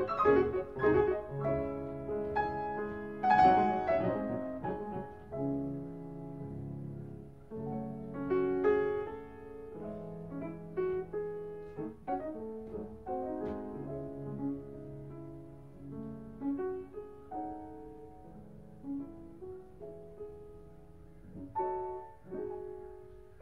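Two grand pianos playing a classical duet. It opens with loud, dense chords for the first few seconds, then moves into quieter, lighter playing with occasional accented notes.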